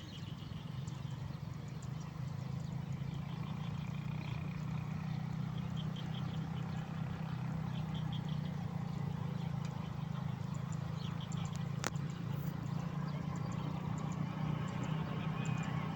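Nature ambience of calling animals: clusters of short high chirps repeating over a steady low drone, with a single click about twelve seconds in.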